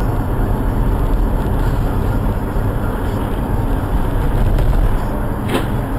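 Steady low rumble of a car's engine and tyres driving in city traffic, heard from inside the cabin through a dashcam microphone. About five and a half seconds in there is one brief sharp click.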